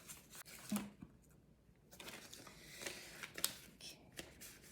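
Paper banknotes and a paper cash envelope being handled, rustling faintly, with a few soft clicks and taps, the sharpest just under a second in and again past the three-second mark.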